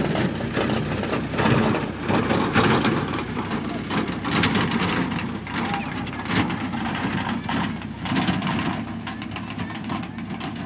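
Crowd of children and adults chattering, over a steady low rumble and many short knocks and crackles.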